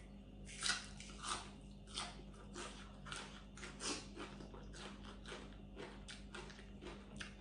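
A person chewing crunchy raw vegetables and long-bean salad close to the microphone. Short, crisp crunches come irregularly, about one or two a second, and are faint.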